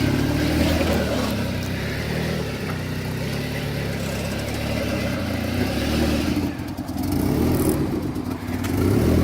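Turbocharged wagon's engine running, its pitch rising and falling as it revs, with a brief drop in level about six and a half seconds in.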